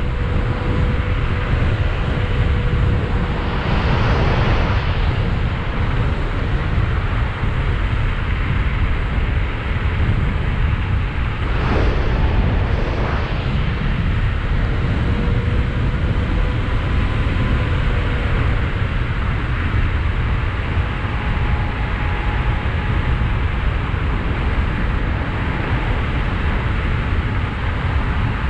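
Wind buffeting the microphone and road noise while riding a 72-volt, 5000-watt DIY electric bike, under which a faint thin whine drifts slightly in pitch. Two brief louder rushes come about four and twelve seconds in.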